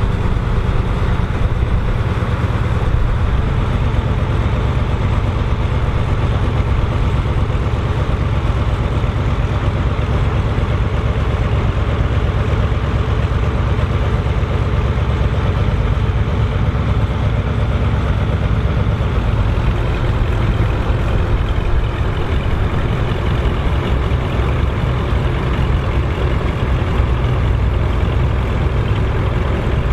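Farm tractor engines running steadily at low speed, a continuous low-pitched engine sound with no let-up.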